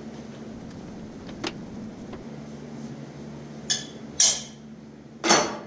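Sharp metallic clanks and knocks on a large Gorton vertical milling machine as it is climbed onto and handled at the head. A small knock comes early, then three loud clanks in the second half, the last the loudest with a brief ring, over a steady low hum.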